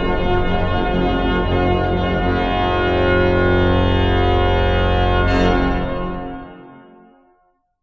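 Pipe organ music: a full sustained closing chord with deep pedal bass. The upper stops cut off about five seconds in and the remaining sound fades to silence near the end.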